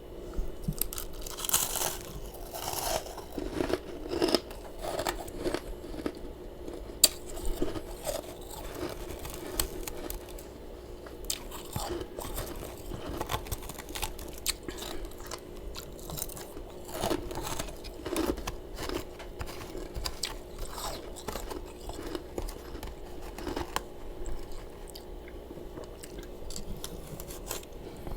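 Close-up chewing of powdery freezer frost: crisp crunches repeat throughout, coming thickest in the first few seconds. A steady low hum runs underneath.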